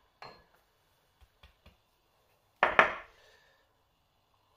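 Quick, sharp taps of a teaspoon against a bowl about two and a half seconds in, with a soft scrape near the start and a few faint ticks before, as ground cumin is measured out.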